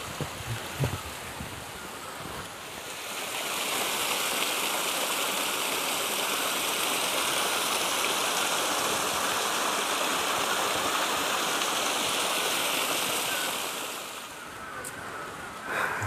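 A small stream tumbling over rocks in a little cascade: a steady rush of water that swells about three seconds in and drops back about fourteen seconds in.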